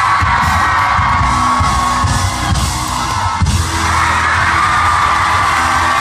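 Live band music played loudly from the stage and heard from within the crowd: sustained instrumental tones over steady drum strikes, with one sharp hit about three and a half seconds in. The audience yells and whoops over it.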